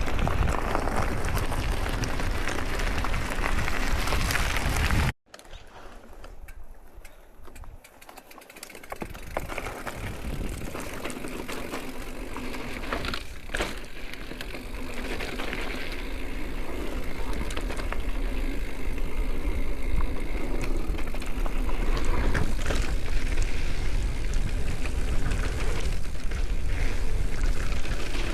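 Transition electric mountain bike riding a dirt trail: wind buffeting the microphone and the rattle and crunch of tyres over the ground. About five seconds in the sound cuts off abruptly, then returns much quieter and grows gradually louder again.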